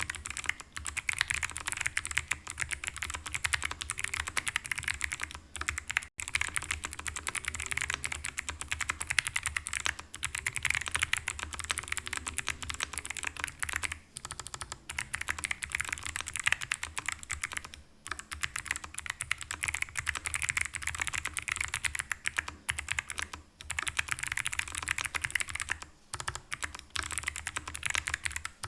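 Typing on a stock, unmodded Ajazz AC100 mechanical keyboard fitted with clicky Kailh Box White switches. The key clicks come fast and dense, with a few short pauses.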